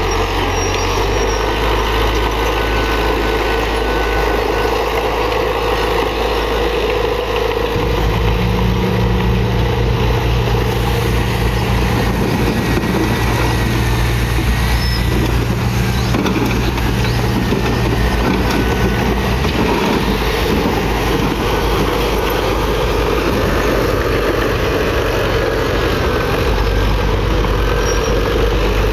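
Heavy diesel earthmoving machinery running steadily under load. Its low engine note changes about eight seconds in and eases back after about twenty seconds.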